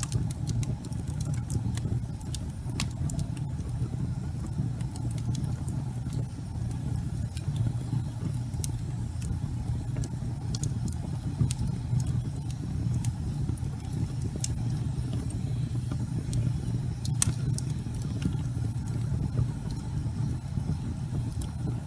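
Wood fire burning in a fireplace: a steady low rumble with scattered sharp crackles and pops from the burning logs, one louder pop about three quarters of the way through.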